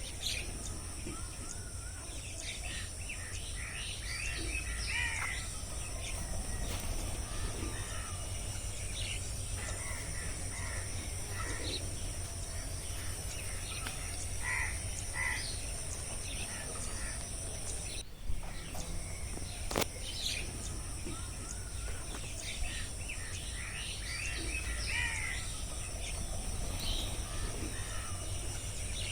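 Rainforest ambience: a steady high insect drone under scattered short bird chirps and calls, with a low rumble of wind beneath. The ambience appears to repeat as a loop about halfway through.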